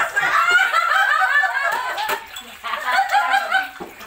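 Several people laughing and chatting together, with a brief sharp click about two seconds in.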